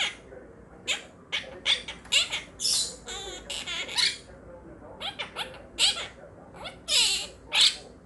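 Quaker parrots (monk parakeets) chattering: a string of about a dozen short, shrill chirps and squawks, with a warbling trill about three seconds in.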